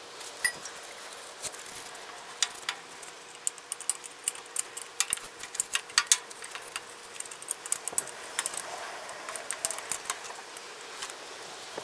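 Irregular sharp metallic clicks and clinks of hand tools being worked on the tractor during a fan-belt change, thickest in the middle of the stretch; the engine is not running.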